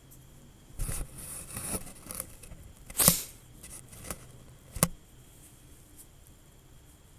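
A short spell of scraping and rustling, then three sharp clicks, the loudest about three seconds in and the last near five seconds.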